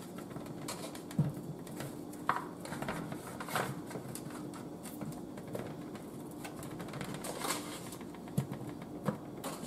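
Cut potato pieces being dropped and set by hand into a metal baking pan of corn and sausage: scattered light knocks and taps, with a faint steady hum underneath.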